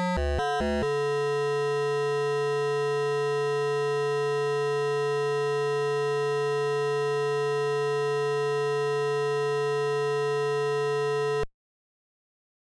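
Commodore VIC-20 sound chip, emulated in VICE, plays a few quick notes of a buzzy chiptune. When the BASIC program is broken off, it sticks on one held chord that drones steadily for about ten seconds. Near the end it cuts off suddenly, silenced by setting the volume register to zero (POKE 36878,0).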